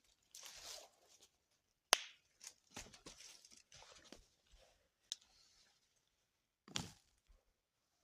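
A few sharp clicks and knocks with soft rustling between them, the loudest knock about two seconds in.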